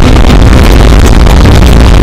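Motorcycle riding at speed picked up on an action camera, very loud and dense with wind noise over the engine, with music mixed in.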